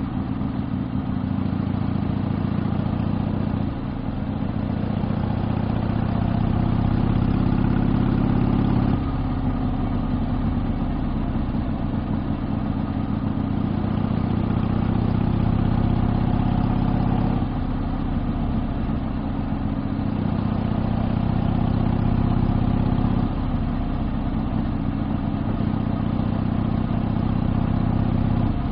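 Exhaust of a 1972 Harley-Davidson Sportster XLCH's 1000 cc Ironhead V-twin under way, running steadily. Its note and loudness shift in steps a few times with changes of throttle or gear.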